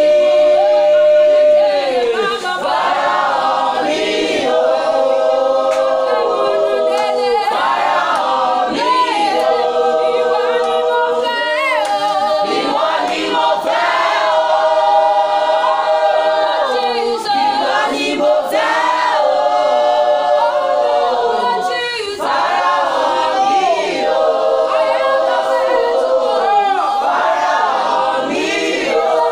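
Choir singing a cappella: several voices holding long chords together, moving to new notes every few seconds with short breaks between phrases.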